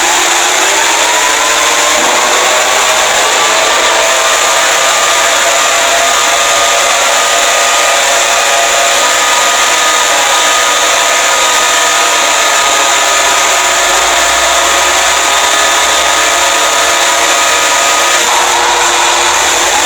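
Emergency Alert System-style alarm: several siren tones slide slowly up and down at different rates over a loud, steady hiss of static.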